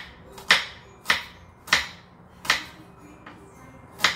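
Kitchen knife chopping a carrot on a wooden cutting board: a steady series of sharp chops a little over half a second apart.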